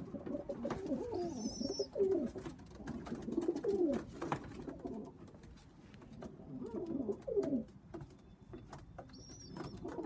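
Pigeons cooing in a loft: overlapping low coos that come and go, quieter for a moment in the middle, with a brief high chirp twice.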